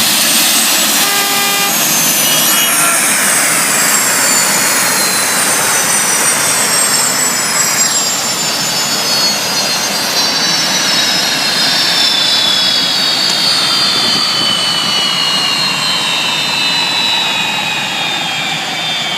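Gas-turbine engines of a tractor-pulling machine running during warm-up: a loud rushing noise with several high whines that slowly fall in pitch. A short horn-like tone sounds about a second in.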